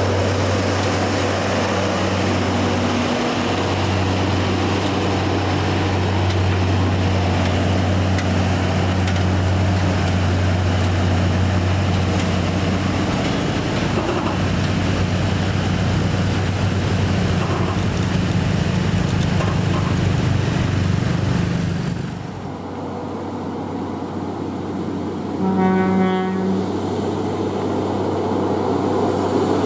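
Scania heavy-haul truck's diesel engine running with a steady low drone as it pulls a crawler crane on a low-loader trailer past, dropping away about three-quarters of the way through. Near the end a horn sounds once for about a second.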